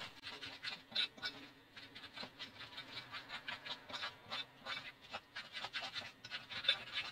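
A spoon stirring thick banana cake batter in a glass mixing bowl: quick, uneven wet scraping and squelching strokes, a few a second.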